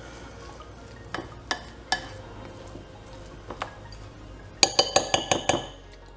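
Metal spoon stirring a sticky, crumbly nut-and-date cake base in a glass bowl, clinking against the glass now and then. Near the end comes a quick run of about eight sharp clinks of the spoon on the bowl.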